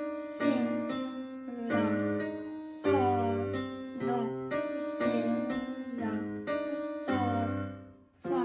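Electronic keyboard played in a piano voice: a simple boogie bass line played with the left hand alone, a new note about every half second, with a short break near the end.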